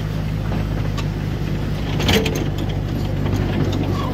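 Miniature railway train running, a steady low engine drone with the rumble of the carriages on the track, and a short clatter about two seconds in.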